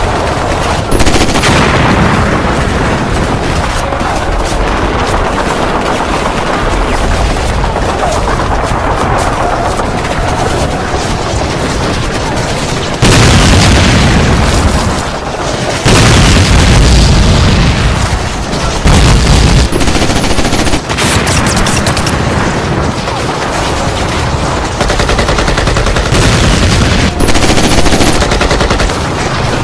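War-film battle sound: dense, continuous rifle and machine-gun fire mixed with explosions, with several louder blasts in the second half.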